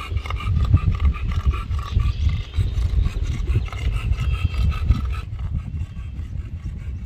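Wind buffeting the microphone: a loud, uneven low rumble that eases after about five seconds.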